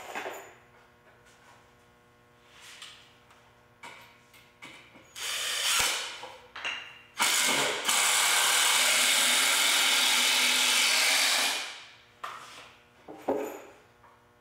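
Cordless impact driver driving a wood screw into a 2x4: a few short trigger pulls, then a steady run of about four seconds in the middle. Light knocks of wood being handled at the start and near the end.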